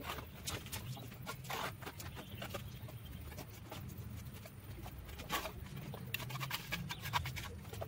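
Bricklayer's trowel scraping mortar and tapping bricks into place along the top of a brick wall: irregular small clicks and scrapes, with a faint steady low hum behind.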